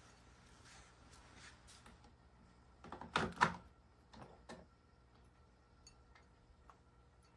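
Domestic cat eating dry kibble from a ceramic bowl: faint crunching clicks, with a brief cluster of louder knocks about three seconds in and a couple more soon after.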